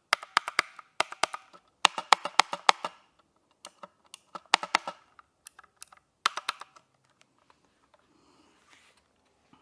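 Mechanical keyboard with blue switches, its keys pressed and bottomed out in quick runs of sharp clicks that stop about seven seconds in.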